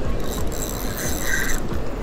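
Spinning reel being cranked, its gears whirring in two short bursts about half a second apart, over a steady low rumble.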